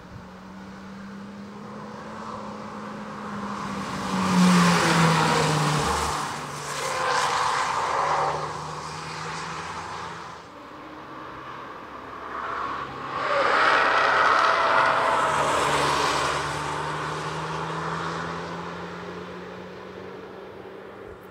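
Hyundai i20 N prototype's turbocharged four-cylinder engine running hard as the hatchback drives past on the track, with two loud passes, about four to six seconds in and again about thirteen to sixteen seconds in. The engine's pitch drops during the first pass and glides up and down between them.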